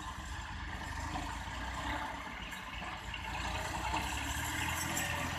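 Massey Ferguson 260 tractor's diesel engine running steadily at a low, even rumble.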